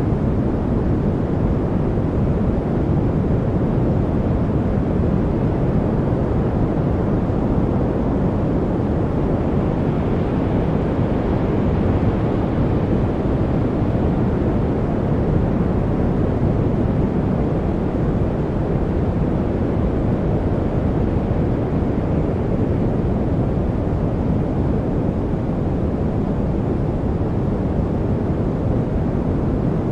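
Steady white-noise track: an even, unchanging rushing hiss weighted toward the low end, with little treble and no rhythm or tones.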